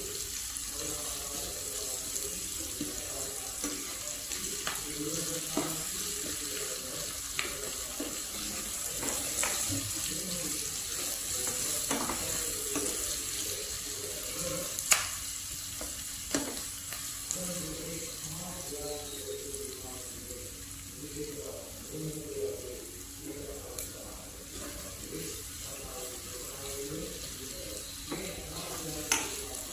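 Sliced onions, garlic and chillies sizzling in a nonstick frying pan while being stirred, the wooden spatula knocking lightly against the pan now and then. The sharpest knock comes about fifteen seconds in.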